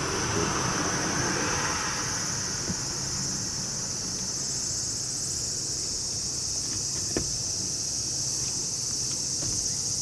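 Steady, high-pitched shrilling of insects, with a rustle in the first couple of seconds and a few faint light clicks, the clearest about seven seconds in.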